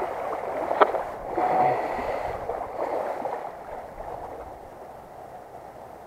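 Shallow river water sloshing and gurgling as a wooden-framed landing net is held and moved in the water, with one sharp click a little under a second in; the sloshing dies down over the last few seconds.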